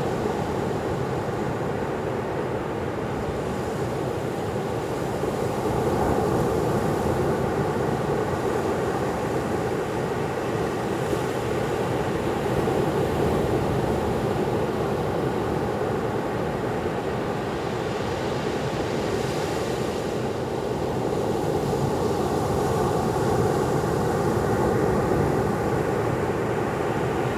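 Surf breaking on a sandy beach: a steady rushing that swells and eases every several seconds.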